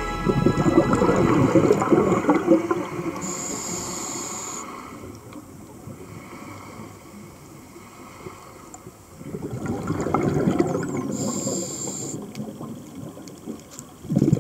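Scuba diver breathing through a regulator underwater: two long stretches of bubbling exhalation, one at the start and one about nine seconds in, each with a short high hiss from the regulator, and a quieter gap between them.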